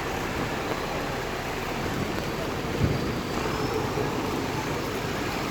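Steady rain falling, a continuous even hiss with a brief louder knock about three seconds in.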